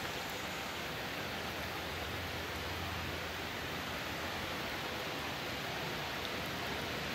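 Steady, even outdoor hiss with no distinct events.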